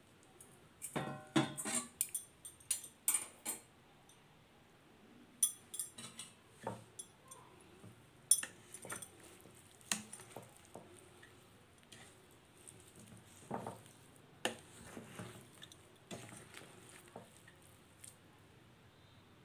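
Raw mango pickle pieces coated in spice masala being mixed in a stainless steel bowl: irregular clatters and knocks against the steel. A quick cluster of ringing knocks comes in the first few seconds, then scattered knocks follow.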